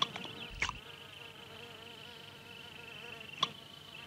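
Insects trilling steadily in a high, even tone, with a few short sharp clicks: one right at the start, one about half a second in and one about three and a half seconds in.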